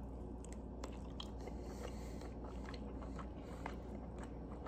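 A person chewing a bite of cooked mahi-mahi, with faint, soft mouth clicks scattered throughout over a low steady hum.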